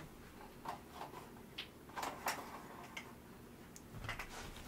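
A few faint, light clicks and ticks, irregularly spaced, over quiet room tone.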